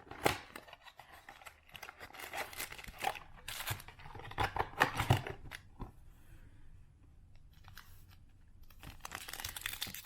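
Trading-card packaging being torn open and crinkled: the wrapping of a Bowman Chrome mini box and its foil card pack. It comes as a run of short tearing rustles, goes quieter for a couple of seconds, then picks up again near the end.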